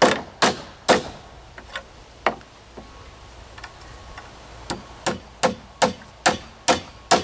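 Hammer driving hanger nails through a metal joist hanger into a wooden beam. Three sharp blows, a couple of light taps, then a steady run of about six blows, roughly two to three a second, in the second half.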